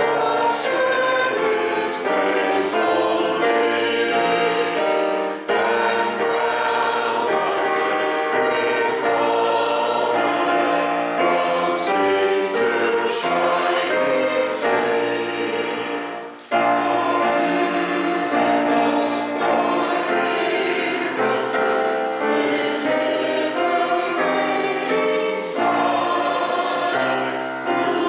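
A church choir singing, many voices together, with a short break between phrases a little past halfway.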